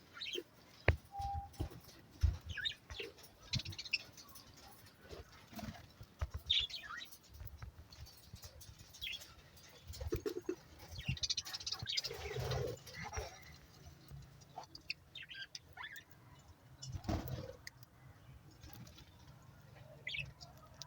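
Budgerigars chirping in short, scattered calls, with occasional small knocks and scratches among them.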